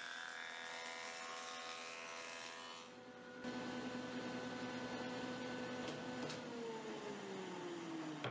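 Ridgid 6-inch jointer running, its cutter head planing boards with a steady hum. About six seconds in it is switched off and the pitch falls steadily as the cutter head winds down.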